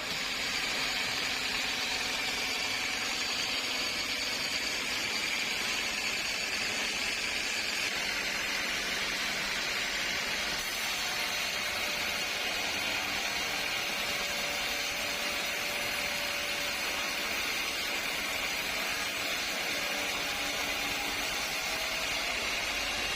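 Sawmill machinery running steadily, an even, unbroken mechanical noise with no cutting strokes or changes.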